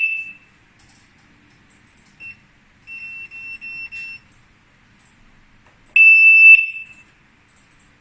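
Piercing electronic beeps from a wireless GSM alarm system: a loud beep dying away at the start, a short faint beep about two seconds in, a run of quieter short beeps around three to four seconds, then a loud half-second beep about six seconds in.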